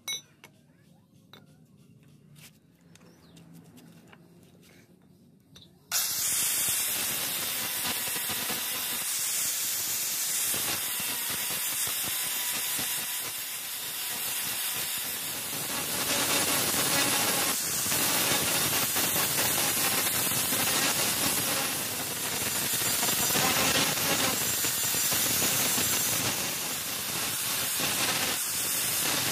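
Angle grinder with an abrasive disc cuts in suddenly about six seconds in and grinds the edge of a steel blade cut from a motorcycle brake disc. It makes a steady hiss whose level rises and dips a little. Before it starts, there are only a few faint handling clicks.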